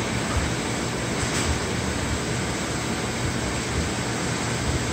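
Steady rushing background noise of a warehouse, with a low hum underneath.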